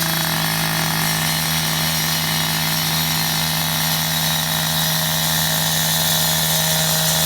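Gas-powered saw cutting through asphalt for perimeter cuts: the engine runs at a steady high speed with a constant hum, under a continuous grinding hiss from the blade.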